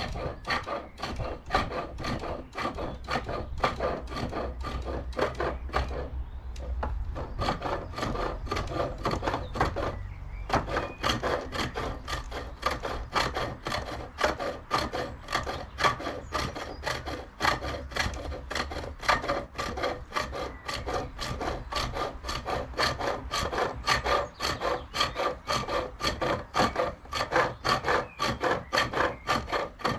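Spring pole lathe turning wood: a hand-held turning tool cutting a spindle that spins back and forth with each treadle stroke, giving a quick, regular rhythm of scraping cuts. The cutting breaks off briefly about ten seconds in.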